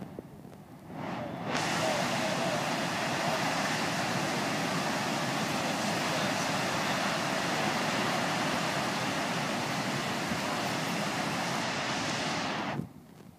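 Floodwater pouring over a dam's concrete spillway: a loud, steady rush of water that builds up over the first second and a half and cuts off abruptly near the end.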